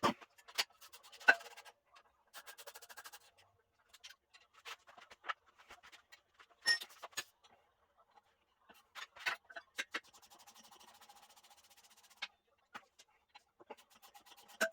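Metal clinks and knocks of hand tools and engine parts during the teardown of an LS V8, with stretches of rapid, even clicking, about three seconds in and again from about ten seconds.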